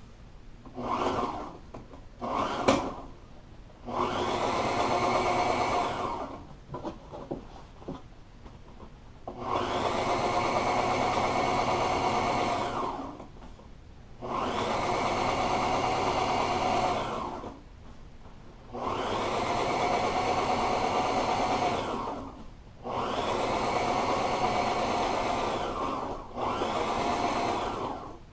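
Heavy-duty portable sewing machine stitching pleats in a foam-backed upholstery panel: two brief stabs of stitching near the start, then six steady runs of about three seconds each with short pauses between.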